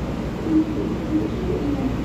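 Steady low rumble on an underground railway platform beside a standing EMU3000 electric train, with brief faint tones coming and going over it.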